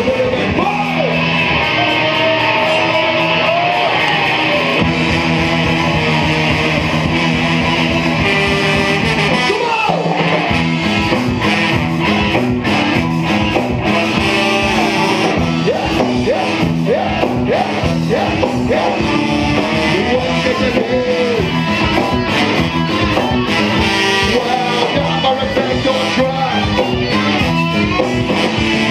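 Ska-punk band playing live and loud: electric guitar, bass and drums with a lead vocal, steady throughout.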